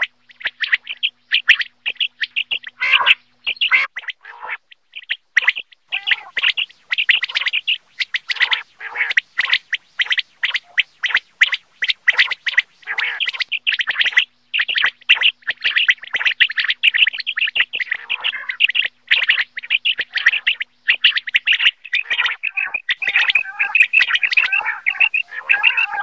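Common quail calling: a rapid, continuous run of short, high chirping notes, turning lower and more jumbled in the last few seconds.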